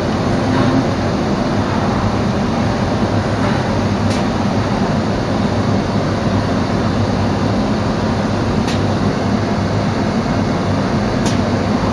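Biesse Rover A CNC machining centre running, heard from inside its enclosure: a steady, loud mechanical noise with a low hum, with three brief faint high hisses along the way.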